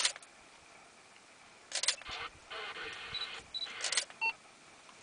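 Camera shutters clicking in short rapid bursts, three times about two seconds apart, with a few brief high electronic beeps between them.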